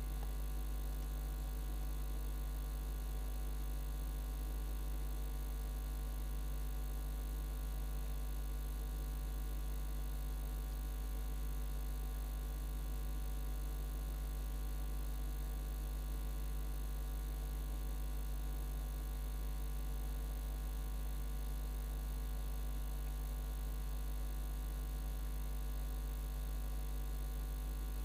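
Steady electrical mains hum, a constant low buzz that does not change at all.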